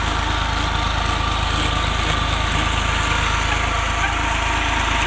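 Tractor engine running steadily at a constant speed under load, belt-driving two borewell pumps through pulleys.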